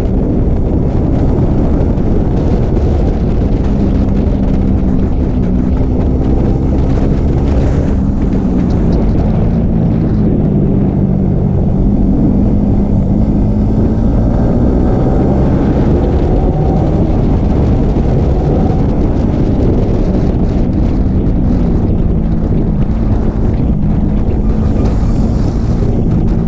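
Yamaha sport motorcycle riding at speed: heavy wind noise on the microphone, with the engine's running note underneath, its pitch drifting up and down a little with the throttle.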